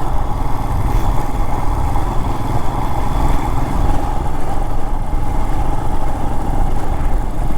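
Royal Enfield Himalayan's 411 cc single-cylinder engine running at a steady speed while the motorcycle is ridden.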